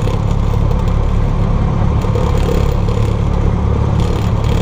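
Cessna 172's piston engine and propeller running steadily, a continuous low drone heard inside the cockpit.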